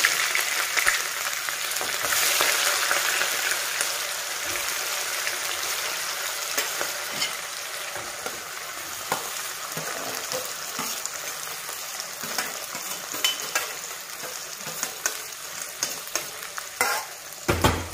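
Hot oil sizzling loudly in an aluminium kadhai as chopped onions and green chillies go into the tempered cumin seeds, easing off gradually as the pan fills. Light clicks of a spoon pushing the onions out of a steel bowl, and a knock near the end.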